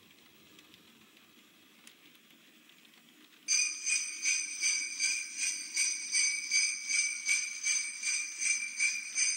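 Faint running of the model trains, then about three and a half seconds in a bell on the O gauge layout starts ringing in quick repeated strokes, about three a second.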